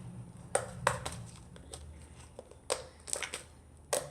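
Slime with smashed Orbeez bits in it being squeezed and worked by hand, giving scattered sharp clicks and pops, about half a dozen at irregular intervals.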